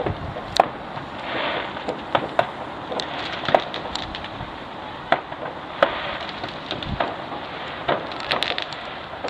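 Fireworks going off: scattered sharp bangs and crackles at irregular intervals over a steady background hiss, with a deeper thump at the start and another about seven seconds in.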